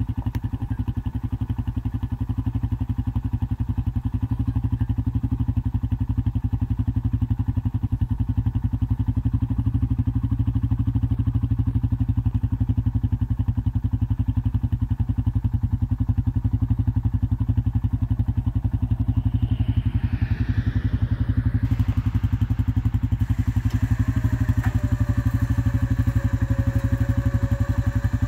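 ATV engine idling steadily. About 24 seconds in, a steady whine starts on top of it as the bale unroller's powered arms lift the round bale off the ground.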